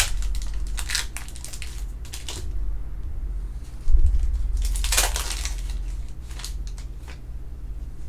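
A sealed trading-card hobby box and its wrapping being torn and crumpled open by hand, in irregular crackling rips, with a thump of handling about four seconds in.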